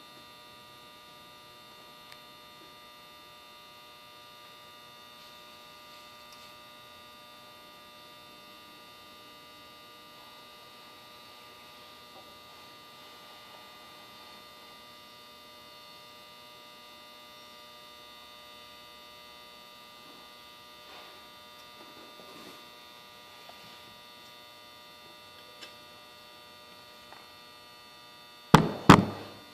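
Steady electrical mains hum made of many steady tones, with a few faint clicks. Near the end come two loud knocks close together.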